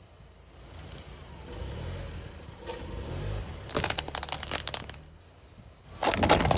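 A car's tyre rolls slowly forward with a low rumble, then runs over a gummy-bear-covered egg with a burst of crackling and crunching about three and a half seconds in. A second, louder burst of crunching starts near the end.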